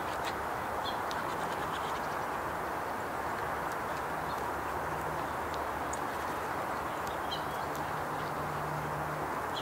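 Steady outdoor rushing background noise with a few brief, faint, high-pitched bird chirps scattered through it. A low hum is also heard for about a second near the end.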